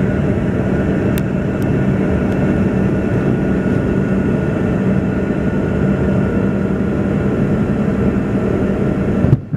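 Steady cabin noise of an airliner in flight, a loud rush of engines and airflow with a steady low hum under it. The sound breaks off abruptly just before the end, then picks up again.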